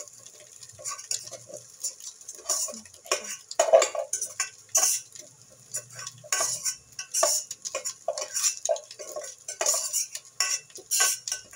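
Irregular metal clinks and scrapes, several a second, as cooked rice is scooped out of an aluminium pot into a cooking pan, the pot's rim knocking against the pan.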